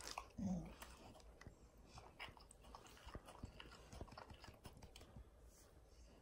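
Faint wet mouth clicks and lip smacks from a miniature bull terrier licking and mouthing in bed, with a short low sound about half a second in.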